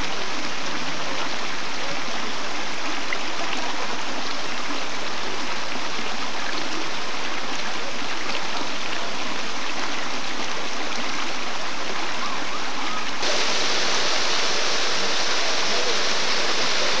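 Steady rush of running water from a stream or waterfall, turning suddenly brighter about thirteen seconds in.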